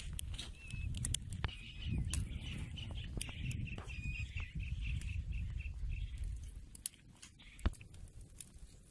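Birds chirping in a quick run of short repeated calls over a low rumble, with scattered crackles from the wood fire under the grill and one sharp crack near the end.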